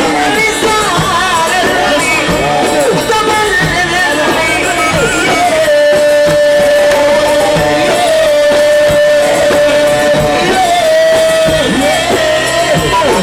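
Music from an Arabic song: an ornamented melodic line, then one long held note through the middle, then the melody moving again over the accompaniment.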